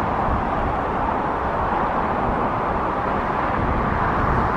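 Steady rushing wind noise on the microphone, with an uneven low buffeting rumble.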